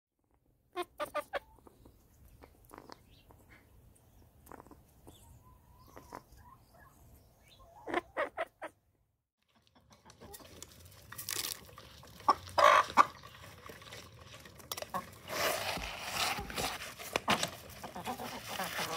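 Backyard hens clucking in short clusters of calls. After a brief silence, a busier stretch of clucking mixed with quick clicks and rustling as they peck rice off a concrete paver.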